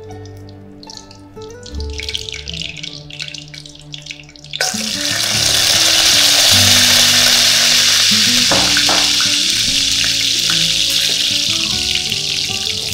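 Whole spices (cinnamon stick, star anise, cardamom pods) hitting hot cooking oil and ghee in a wok. A sudden loud sizzle starts about a third of the way in, then carries on as steady frying, easing slightly near the end.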